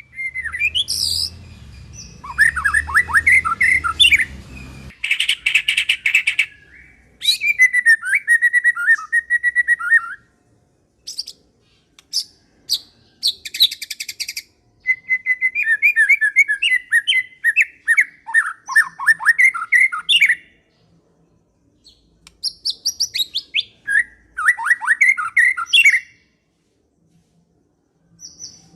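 White-rumped shama singing: bursts of varied, quick whistled phrases and trills with short pauses between them. A low hum sits under the song for the first few seconds.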